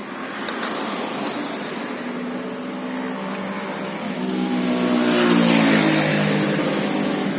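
A motor vehicle's engine revving: its pitch climbs and it grows louder about four seconds in, peaks just past the middle, then eases off.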